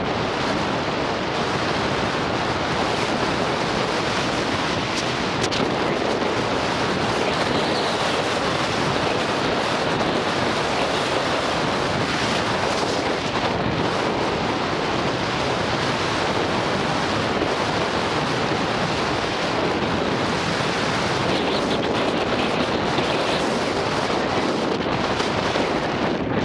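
Steady rushing wind noise buffeting an action camera's microphone as a mountain bike is ridden fast down an enduro race stage.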